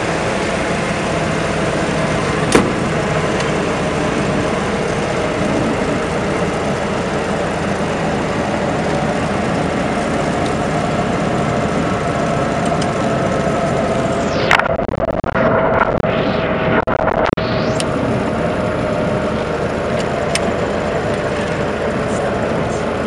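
Light aircraft's engine and propeller heard from inside the cabin, running steadily as the plane rolls along the runway after landing.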